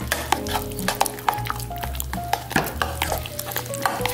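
A metal spoon stirring a thick, creamy mayonnaise and sour cream sauce in a ceramic bowl, with many quick clicks and scrapes against the bowl's sides, over background music.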